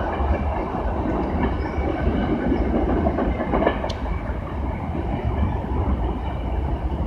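Train running past close by: steady noise of wheels on the rails, with faint high ringing tones and a sharp click about four seconds in.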